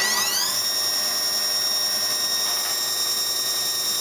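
Star JNC25 CNC Swiss-type lathe's inverter-driven main spindle spinning up: a high whine that rises in pitch for about half a second, then holds steady.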